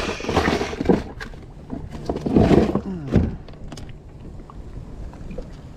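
Knocks, clicks and scrapes of handling aboard a kayak, busiest about two to three seconds in, over a low rumble of wind on the microphone.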